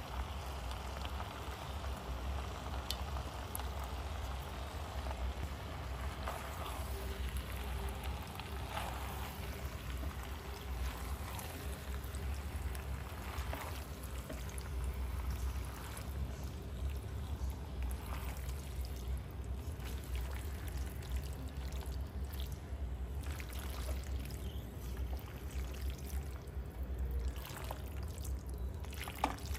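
Thick white sauce pouring from a pan onto bow-tie pasta, then a spatula stirring and folding the sauced pasta in a nonstick pan, with wet squelches and occasional scrapes against the pan. A steady low hum runs underneath.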